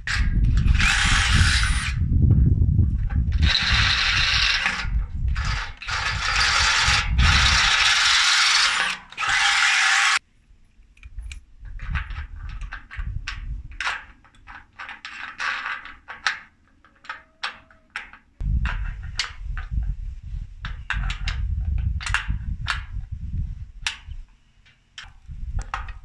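Cordless drill boring into a steel square-tube frame, running in two long stretches over the first ten seconds. After that come scattered clicks and knocks of metal parts being handled, and a low rumble for several seconds near the end.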